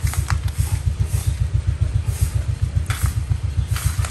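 Welded wire mesh clinking a few times as it is bent over a square steel bar, over a loud, steady, low throbbing hum of a running motor.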